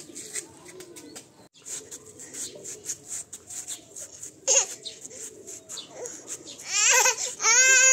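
A toddler's high-pitched vocalizing: a short squeal about four and a half seconds in, then two longer, louder wavering cries near the end.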